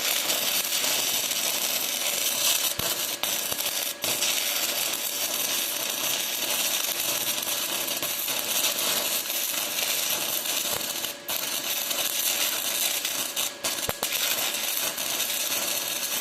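Stick-welding arc of an E6010 electrode burning on a steel root pass: a continuous dense crackle and sputter. It drops out for an instant a few times as the arc nearly goes out, which the welder puts down to his machine not holding the arc steady.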